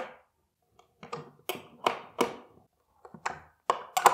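Small metal ring spanner tightening a nut on a threaded stud in a particleboard furniture panel: a string of sharp metal clicks and taps in short clusters, with brief pauses between turns.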